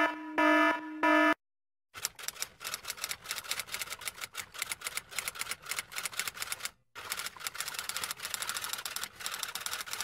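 An electronic alarm beeps three times, then cuts off. About two seconds in, typewriter keys start clacking rapidly and keep going, with one brief pause about seven seconds in.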